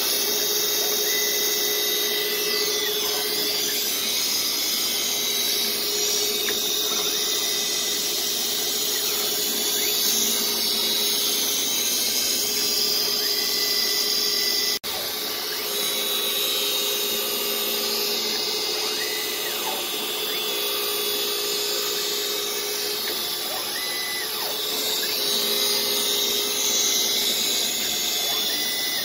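Tormach PSG612 surface grinder's Norton 5SG 46H wheel grinding across the steel top of a magnetic chuck, truing it a few tenths per pass. It makes a steady loud hiss with a held spindle whine. Halfway through there is a brief break, then it carries on slightly quieter.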